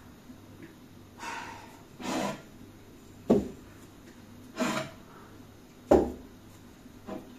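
Kitchenware being taken from a wall cabinet and set down on the countertop: two sharp knocks, about three and six seconds in, between softer brushing sounds.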